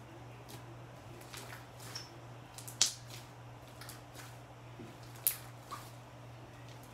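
Light blue slime being squeezed and kneaded by hand, giving soft scattered crackles and small pops, with two sharper pops at about three and five seconds in.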